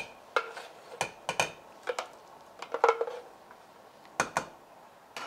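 A metal spoon clinking and tapping against a glass jar and an enamel soup pot as spoonfuls are scooped into the pot: about a dozen irregular, ringing clinks.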